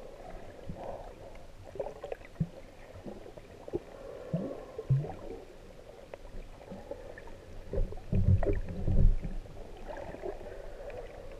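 Muffled underwater sound heard through a submerged camera's waterproof housing: water moving and gurgling, with scattered small clicks and a louder low rumble about eight seconds in that lasts a second and a half.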